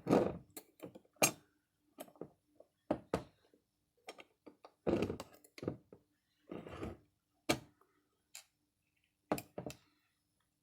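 Metal parts of an Accurate mortise lock body clicking and knocking as its case cover is worked into place over the locating pins, with a few short scraping stretches.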